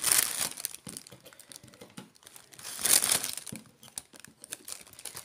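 Clear plastic bag crinkling as it is handled, louder in two bursts: right at the start and about three seconds in.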